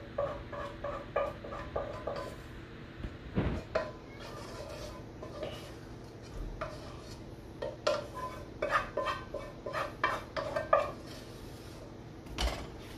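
A utensil scraping and knocking noodles out of a metal pot into a pot of sauce: a run of clinks and scrapes with the pot ringing, and one louder knock about three and a half seconds in.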